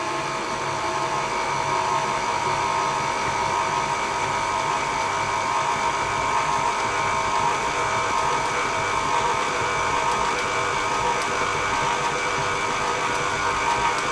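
KitchenAid Artisan stand mixer running steadily on low speed, its flat beater mixing flour into a thick cookie dough: an even motor whine.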